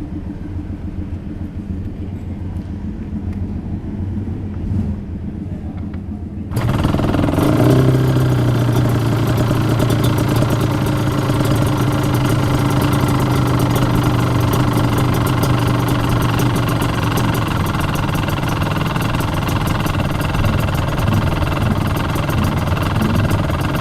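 Aprilia RS250's two-stroke V-twin breathing through a Sugaya full exhaust system, coming in suddenly and loud about six seconds in after a quieter low rumble. It then runs steadily without revving.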